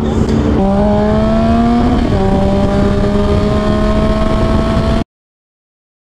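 Motorcycle engine pulling away and accelerating, its pitch climbing, dropping once at an upshift about two seconds in, then climbing again. The sound cuts off suddenly about five seconds in.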